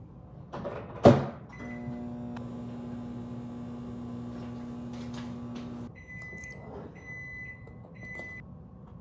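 Microwave oven: its door shuts with a knock about a second in, a short beep sounds, then it runs with a steady hum for about four seconds. It stops and beeps three times, signalling the end of the cooking cycle.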